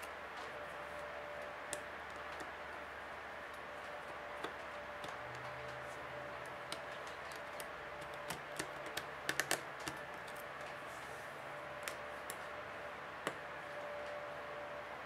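Scattered small plastic clicks and taps as a plastic pry tool works along the bottom edge of an opened Google Nexus 7 (2012) tablet, prying at the speaker assembly in its frame. A quick run of clicks comes a little past halfway, over a steady hiss.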